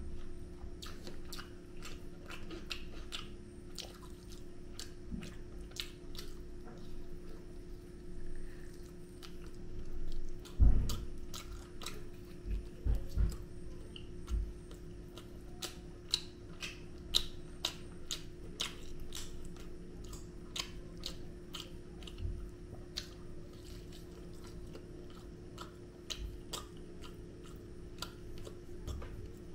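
A man chewing and biting into tandoori chicken and biryani, with many small wet clicks and smacks of the mouth, over a steady low hum. A few dull thumps come between ten and fourteen seconds in, the loudest about ten and a half seconds in.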